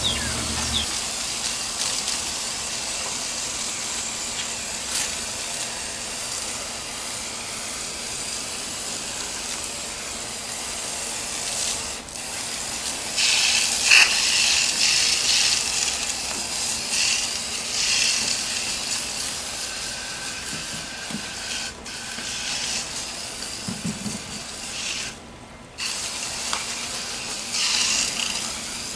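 Water spraying with a steady hiss that swells and eases, with a few sharp clicks.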